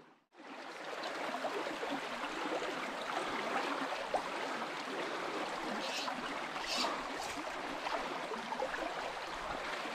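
Shallow trout stream running: a steady rush and gurgle of flowing water over stones, with a few faint brief splashy sounds about six to seven seconds in.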